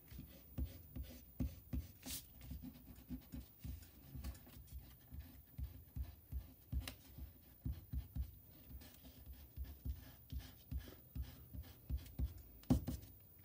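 Pink rubber eraser rubbing pencil lines off paper in quick, uneven back-and-forth strokes.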